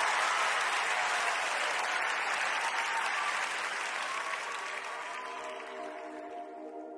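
Crowd applause slowly fading out, with a held musical chord ringing underneath near the end.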